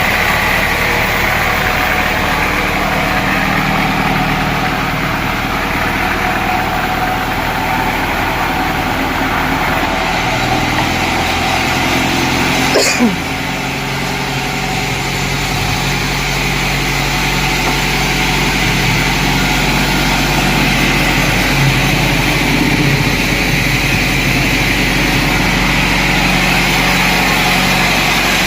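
Sawmill machinery running steadily with an engine-like drone and a high whine. About halfway through there is a brief sharp click, and the low hum changes after it.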